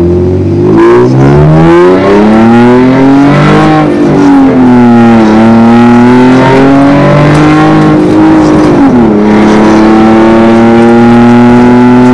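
Porsche Cayenne S E-Hybrid's supercharged 3.0 V6, breathing through a catless downpipe and a valved aftermarket catback, heard from inside the cabin while accelerating. The engine note climbs, dips about five seconds in and climbs again, then drops sharply at an upshift about nine seconds in and holds steady.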